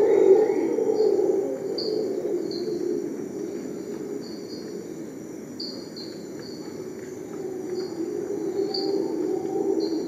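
Rainforest ambience: insects droning steadily with short high chirps repeating irregularly, over a louder low rushing sound that is strongest at the start, eases off in the middle and builds again near the end.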